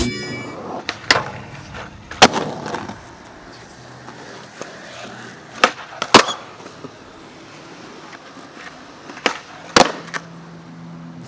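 Skateboard wheels rolling on pavement, broken by six sharp wooden clacks of the board: single hits about one and two seconds in, then two pairs a half-second apart around six seconds and near the end, like tail pops followed by landings.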